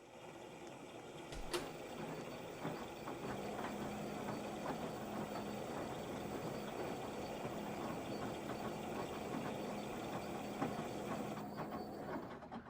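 LG washing machine running its quick wash cycle, a busy rattling noise with many small clicks. There is a sharp click about a second and a half in, and a steady hum from about three seconds in; the sound drops away at the very end.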